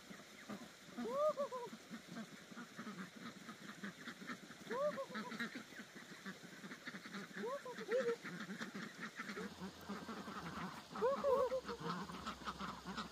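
Domestic ducks quacking: single loud calls every few seconds, a quick run of calls near the end, over softer, steady chatter from the flock.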